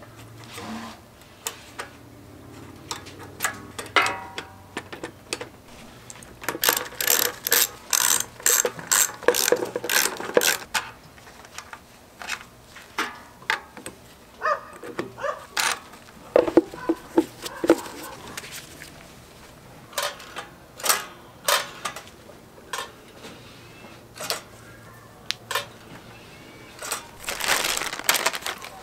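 Hand tools and small metal parts being worked on a small engine's throttle cable linkage: irregular clicks, taps and rattles, with a dense run of sharp clicks about a quarter of the way in and another cluster near the end.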